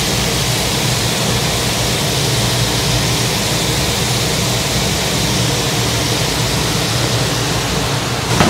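Vegetables sizzling in a hot wok, a steady hiss with a low hum underneath.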